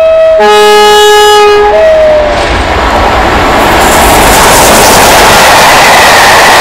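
Two Class 47 diesel locomotives sound a two-tone horn in three notes, high, low, then high again, the last one sagging slightly in pitch. Then the locomotives and their Pullman coaches pass close at speed, a loud, steady rushing noise that builds and holds.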